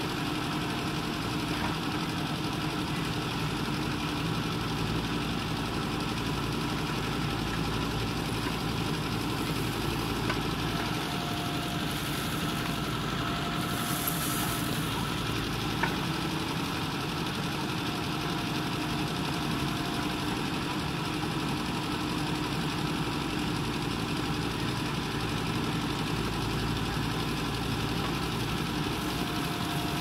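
JCB 3DX backhoe loader's diesel engine running steadily while the backhoe arm digs and swings.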